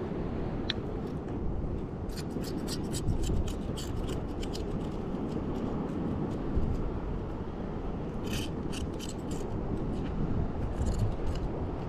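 A small knife scraping and clicking against a shell as shellfish bait is cut open on rock, in quick runs of sharp clicks about two seconds in and again near the end, over a steady low rush of wind and surf.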